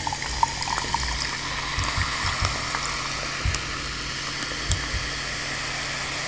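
Sparkling water fizzing: a steady hiss of carbonation with many tiny crackling pops, and a few soft low knocks.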